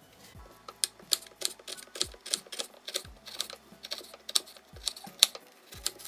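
Kitchen knife chopping a red onion on a wooden cutting board: a quick, uneven series of sharp taps, about three a second.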